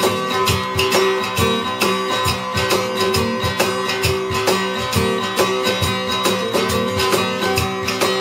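Steel-string acoustic guitar strummed in a steady, driving rhythm, playing an instrumental intro.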